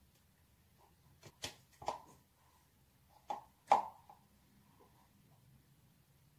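About five short clicks and taps, starting about a second in and spread over roughly two and a half seconds: a metal dab tool being worked against a silicone dab jar and a joint.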